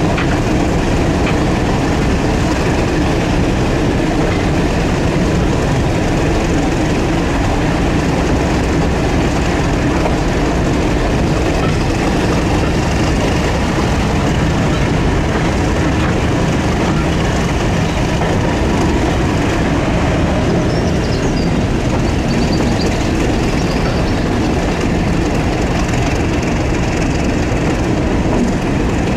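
British Rail Class 31 diesel locomotive 31601 hauling a train, heard from the coach right behind it: a steady engine drone mixed with the rumble and clatter of wheels running on the rails.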